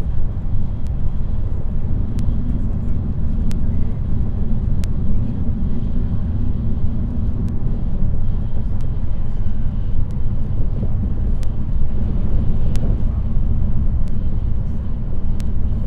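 Steady low rumble of a Shinkansen bullet train running at speed, with a few faint scattered clicks.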